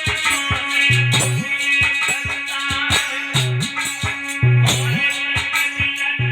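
Instrumental stage-band music: a steady drum beat under a repeating bass line, with plucked-string and melody lines above.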